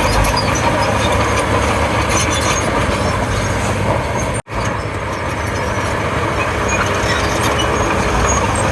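Komatsu D31P crawler bulldozer working: its diesel engine runs steadily under the clank and squeak of its steel tracks. The sound cuts out for an instant about halfway through, then carries on.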